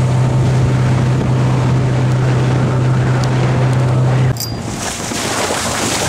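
Boat motor running at a steady speed, a strong low drone under wind and rushing water. About four seconds in the drone stops abruptly with a click and the sound drops, leaving wind and water rush.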